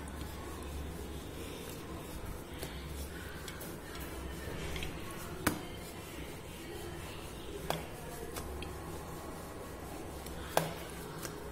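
Wooden rolling pin rolling out dough on a steel plate: soft rubbing strokes, with three sharp metallic clinks from the plate about 5, 8 and 11 seconds in, over a low steady hum.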